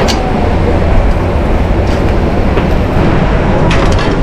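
Steady roar of a busy restaurant kitchen line with a wood-fired hearth, with sharp clanks of cast iron skillets and metal utensils near the start, about two seconds in, and near the end.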